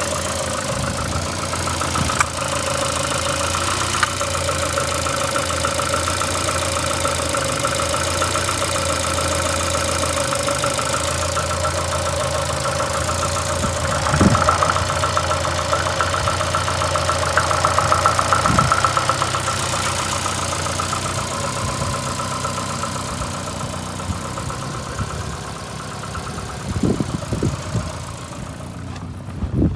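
VAZ-2115's 8-valve four-cylinder engine running unevenly at idle with a knock in it, a few louder knocks standing out. The owner cannot trace the misfire and knock and wonders whether the valves are worn.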